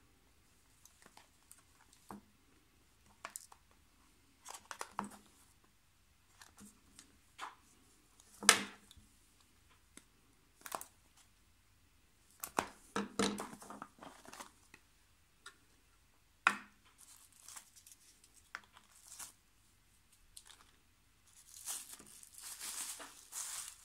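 Plastic packaging being opened by hand: scattered clicks, taps and short scrapes as a clear plastic case is cut at with a hobby knife and handled, with a couple of sharper snaps. Near the end comes a run of crinkling as clear plastic wrap is pulled out of a foam insert.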